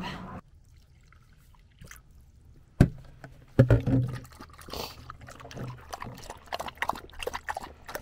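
A dog lapping water from a collapsible travel bowl: a quick, uneven run of wet laps through the second half. A couple of sharp knocks come just before the lapping starts.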